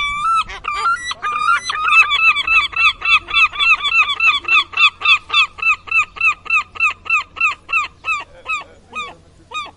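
A bird calling a long series of repeated, harsh arched notes, about four a second, that slow and fade near the end.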